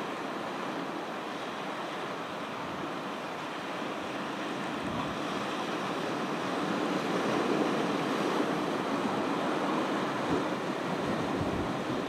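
Ocean surf washing onto the beach, a steady wash that swells louder through the middle and eases near the end, with gusts of wind buffeting the microphone.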